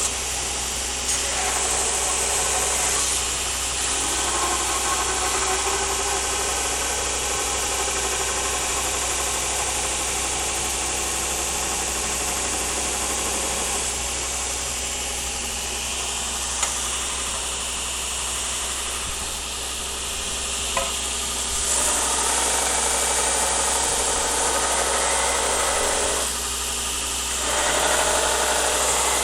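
A powered machine in a bladesmith's workshop running steadily with a rasping, rushing noise, its tone changing every several seconds, with a few light clicks.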